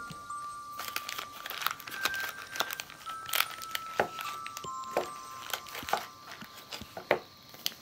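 Plastic gashapon capsule being opened and its contents handled: sharp clicks and snaps of the hard plastic shell and the crinkling of a cellophane toy bag. A simple melody of held single notes plays underneath.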